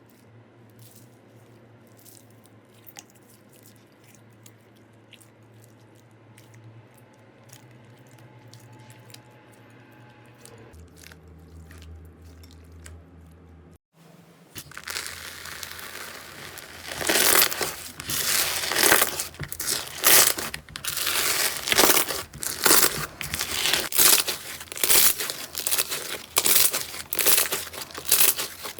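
Crunchy slime being squeezed and pressed, giving loud crackling and crinkling pops that come in bursts about once a second through the second half, after a faint stretch of small clicks.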